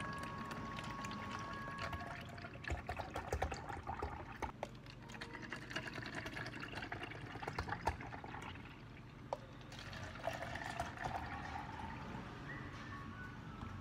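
Green tea latte poured from a pitcher into tall clear plastic cups: a steady splashing stream, rising in pitch as a cup fills, with a few light clicks of the cups and pitcher.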